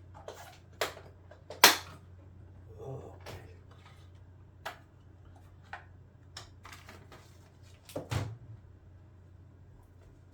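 Hard plastic vacuum-cleaner parts clicking and knocking as the wand and attachments are handled and snapped together: a dozen or so sharp clicks, the loudest about two seconds in and a cluster about eight seconds in, then quiet.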